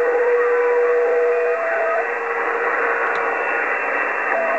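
Cobra 148 GTL CB radio receiving skip: a steady hiss of band static, with steady whistling tones from distant signals that come and go. One whistle drops out about a second and a half in, and a lower one starts about two seconds in.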